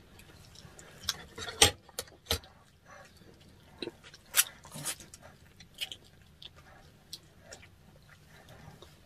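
Close-miked eating sounds of salmon-head sinigang being eaten: scattered wet clicks, smacks and light taps from chewing and utensils. The loudest come at about a second and a half and at about four and a half seconds in.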